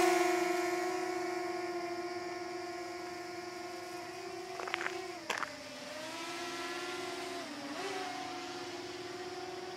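DJI Mini 2 drone's propellers whining in flight, a steady pitch that grows fainter as it moves off, dipping briefly in pitch twice. Two sharp clicks near the middle.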